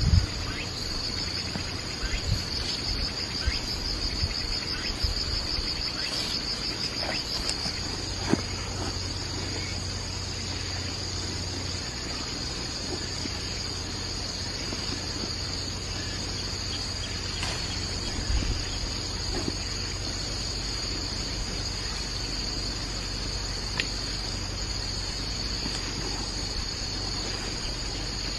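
Insects chirring in a steady high-pitched chorus, which pulses rapidly for the first several seconds and then runs evenly. Scattered small knocks and clatters sound over it.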